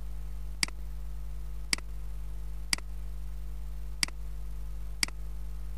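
Five sharp computer mouse clicks about a second apart, over a steady low electrical hum.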